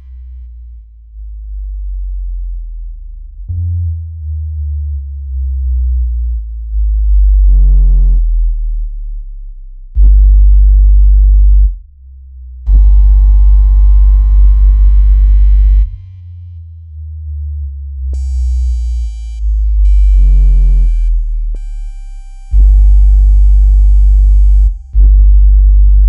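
Synthesized water-ejection tone track for earbud speakers: very deep bass tones switching on and off in blocks of a few seconds, some blocks overlaid with buzzy higher tones and thin high steady tones. It is meant to vibrate a flooded speaker so the water is pushed out.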